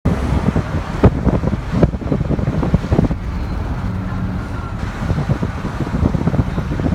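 Strong wind gusting over the microphone: a heavy, rumbling buffet with sharp knocks of the gusts, the hardest about one, two and three seconds in.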